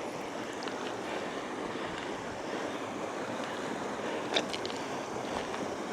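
Steady rushing of a shallow rocky river with a small waterfall ahead, with a couple of sharp clicks about four and a half seconds in.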